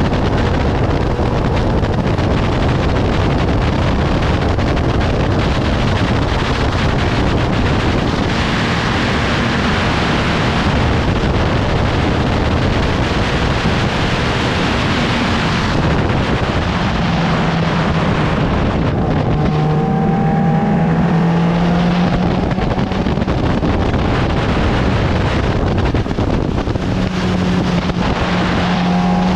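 Onboard sound of a 750 Formula racing car at speed: its engine running hard under heavy wind buffeting on the microphone. In the second half the engine note climbs several times as the car accelerates.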